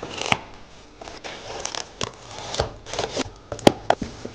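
A cardboard box being unpacked: a knife cutting the plastic packing straps, then cardboard flaps opened and plastic wrap handled, an irregular run of short scrapes, rustles and taps. A single sharp click, the loudest sound, comes about three and a half seconds in.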